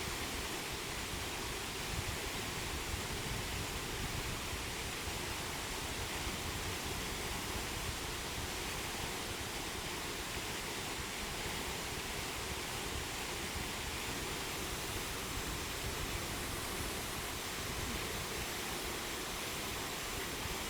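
Steady rush of a waterfall, an even wash of falling water with no breaks.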